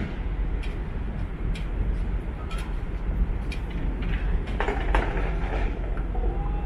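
Steady low machinery hum and rumble from the berthed ferry Ogasawara Maru, with a few scattered knocks and clanks.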